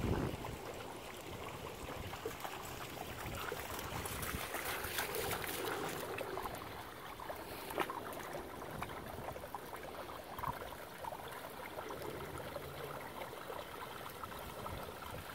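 Shallow stream trickling over stones, with a few small splashes from a dog wading in the water, one sharper than the rest about halfway through.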